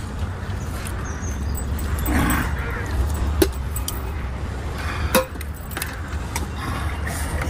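Stainless-steel plates and a serving spoon clinking now and then as rice and curry are served and eaten, over a steady low rumble.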